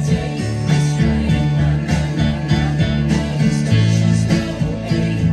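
Pop-rock music with a steady beat, bass and guitar-like plucked parts, with a Yamaha synthesizer keyboard being played.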